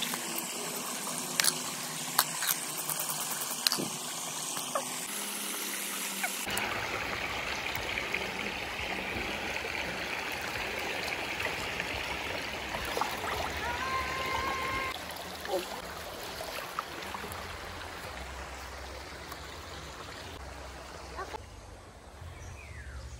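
River water running and lapping against rocks, a steady rushing. In the first few seconds a few sharp knocks and clicks sound over it.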